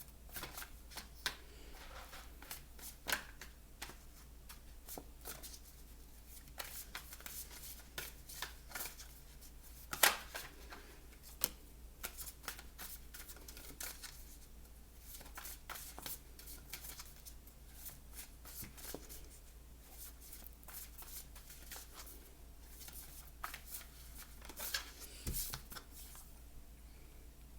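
Deck of tarot cards being shuffled by hand: a dry riffling with many irregular sharp snaps and taps, the loudest about ten seconds in.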